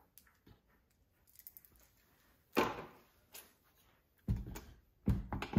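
Handling noise on a wooden workbench: a few faint clicks, then a sharp knock about two and a half seconds in and duller, heavier thuds near the end as the chainsaw body is gripped and tipped over onto its side.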